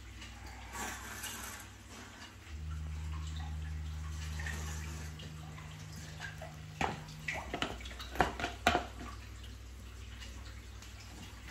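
Aquarium water running and dripping over a steady low hum of equipment; the hum gets louder about two and a half seconds in and eases off again a few seconds later. A quick run of sharp clicks about seven to nine seconds in is the loudest sound.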